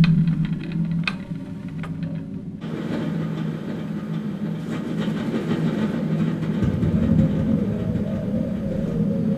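Sound-installation audio built from recordings of a windmill at work. A steady low drone with a few sharp clicks gives way about three seconds in to a dense mechanical rumble, which deepens after about seven seconds.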